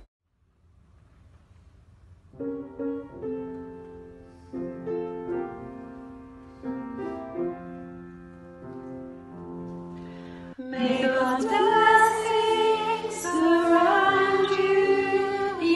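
Near silence for about two seconds, then a piano introduction of single struck notes. About ten and a half seconds in, several women's voices come in singing a hymn over the piano, much louder.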